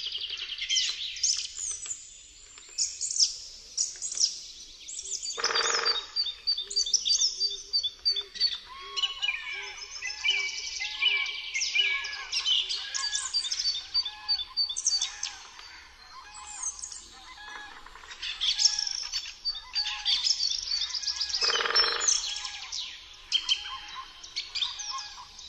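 Many birds singing at once in a dense chorus of high chirps, whistles and rapid trills, with a lower note repeated at an even pace through the second half. Twice, a few seconds in and again near the end, a brief louder and lower sound cuts through.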